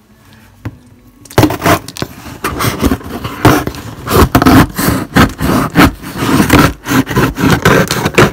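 Cardboard shipping box being opened: packing tape tearing and cardboard flaps scraping and rustling in quick, irregular bursts with sharp clicks, starting about a second and a half in.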